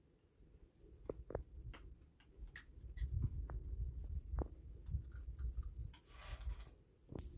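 Roasted sunflower seeds being cracked open between teeth: scattered small sharp cracks, irregularly spaced, over a low rumble.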